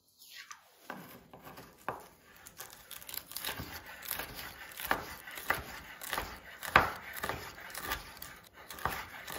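Chef's knife chopping crisp cooked bacon on a bamboo cutting board: a run of irregular crunching cuts, with the blade knocking on the wood.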